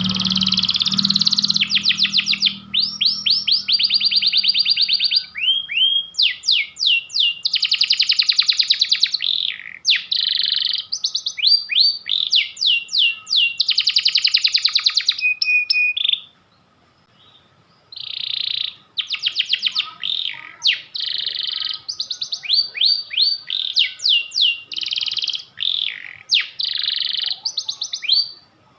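Pied ('panda') domestic canary singing: long, fast trills and rolls of rapidly repeated notes, phrase after phrase with short breaks, and one longer pause a little past halfway.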